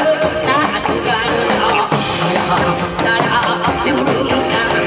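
Live Korean pumba folk music through a PA: janggu and drums beating steadily under a wavering melody line, with a singer's voice over it.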